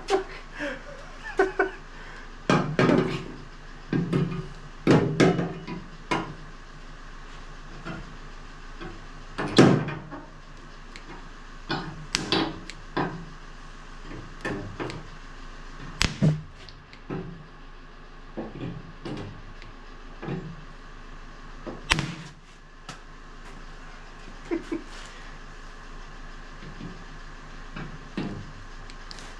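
Spot-welding dent puller working on a car's steel body panel: irregular knocks and dull thumps from pulling and handling the tool, with a few very sharp snaps as it zaps onto the metal, over a steady low hum.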